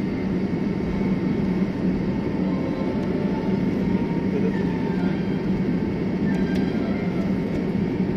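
Steady cabin rumble inside a taxiing airliner after landing, the engines at idle, with a constant low hum.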